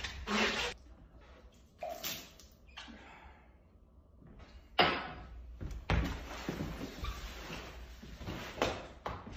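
A series of household knocks and thumps, the sharpest a sudden bang about five seconds in. Near the end a rug is dragged and scuffles across a wooden floor.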